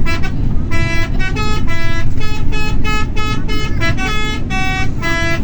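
Indonesian bus 'telolet' horn, a multi-tone musical air horn, playing a quick tune of short, stepped notes with a brief break about half a second in, over a low rumble.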